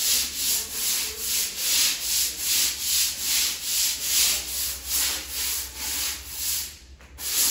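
Long-handled scrub brush scrubbing a wet, soapy tiled floor in quick back-and-forth strokes, about two a second, with a brief break near the end before the strokes start again.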